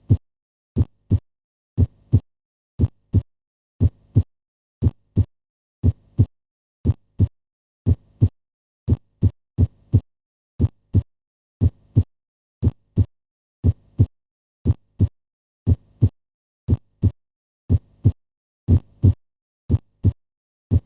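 Normal human heart sounds: a steady lub-dub, the first (S1) and second (S2) heart sounds in close pairs, about one heartbeat a second.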